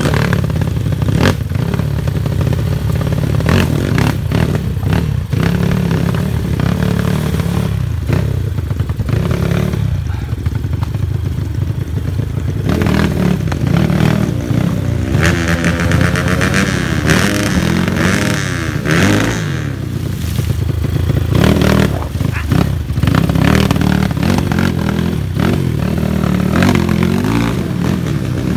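Kawasaki KLX trail bike's single-cylinder four-stroke engine running under load and being blipped as the bike is ridden over river rocks, with frequent short knocks and clatter. In the middle stretch the revs rise and fall repeatedly.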